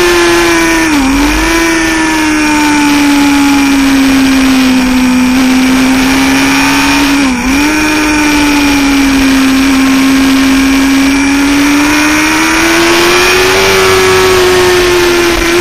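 Sportbike engine running hard, heard from an onboard camera over steady wind rush. The engine note sags slowly and climbs again, with two brief sharp dips in pitch, about a second in and about seven seconds in.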